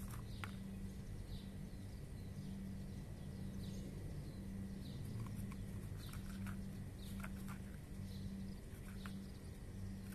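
Cats crunching dry kibble: irregular short crunches, over a steady low hum.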